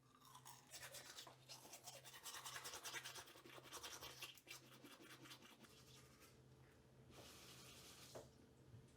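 Faint, rapid scratchy brushing strokes for about six seconds, then a short steady hiss about seven seconds in, over a low hum.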